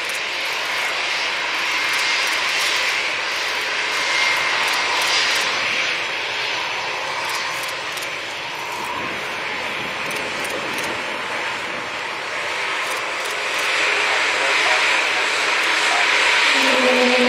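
Turbofan engines of an Embraer E2 regional jet running at taxi power: a steady jet rush with a faint high whine, growing louder toward the end. A low droning tone comes in just before the end.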